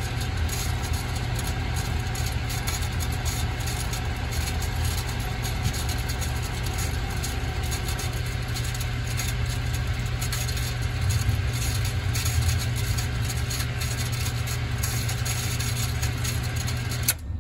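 Electric water pump of a hydropneumatic pressure system running steadily with a low hum as the tank pressure builds. Near the end a sharp click is heard and the running sound cuts off: the pressure control trips at about 3 kg/cm² and stops the pump.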